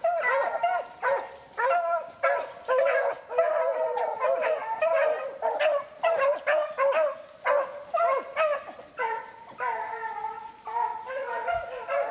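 A pack of 15-inch beagles baying in full cry as they run a scent trail: a rapid, overlapping chorus of short bays from several hounds, with a couple of longer drawn-out notes near the end.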